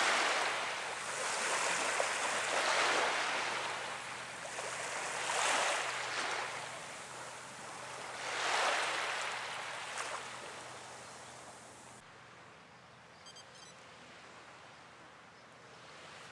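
Small waves washing up on a sandy shore, rising and falling in a new swell every two to three seconds. About twelve seconds in the sound cuts to a quieter outdoor background with a few faint, short high chirps.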